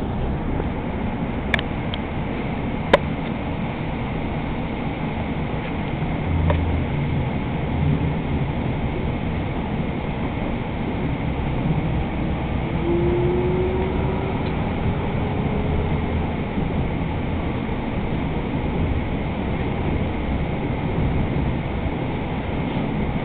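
Hudson-Bergen Light Rail car running along the track, heard from inside the passenger cabin: a steady low rumble with a few sharp clicks near the start and a faint whine rising slowly in the middle.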